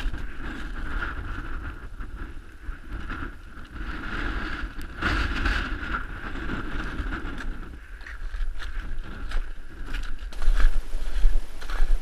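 Gusty wind buffeting the microphone with an uneven low rumble, with scattered knocks and crunches; the gusts grow louder near the end.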